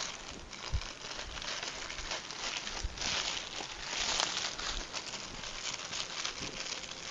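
Parcel packaging crinkling and rustling as it is unwrapped by hand, with small crackles throughout and louder stretches about a second in and from about three to four and a half seconds.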